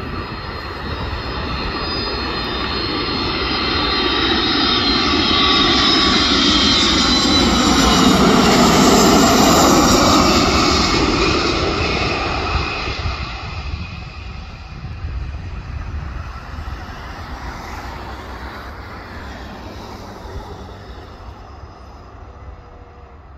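Boeing KC-135 Stratotanker's four jet engines on landing approach, growing louder as it passes low and close, with a whine that slides down in pitch as it goes by. The sound peaks about nine seconds in, then fades steadily as the tanker touches down and rolls away down the runway.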